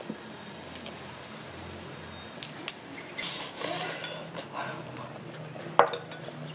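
Wooden chopsticks clicking against a ceramic soup bowl: a few sharp separate clicks, the loudest near the end.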